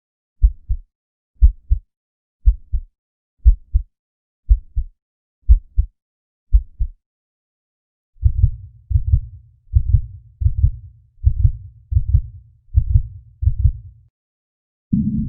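Heartbeat sound effect: a slow, regular lub-dub double beat about once a second, seven times. After a short pause a faster heartbeat follows over a low rumble, then stops shortly before a new section begins near the end.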